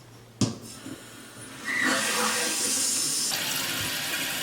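Water rushing steadily through a newly reinstalled toilet as it is first run, starting about a second and a half after a sharp click.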